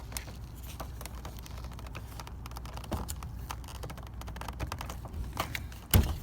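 Light, irregular clicking and tapping of hands and tools working on plastic clips and linkage inside a car door, with one louder knock near the end.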